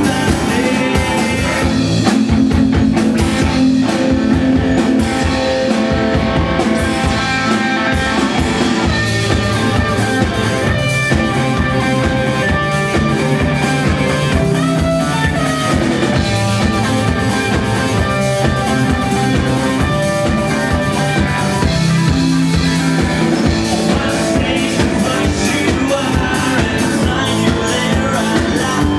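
Rock music with electric guitar and a drum kit playing a steady beat.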